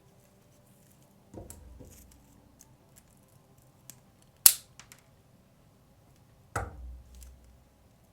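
Dried flowers and stems being handled for a wreath: a soft knock with rustling about a second in, one sharp loud click about halfway through, and another knock with rustling near the end.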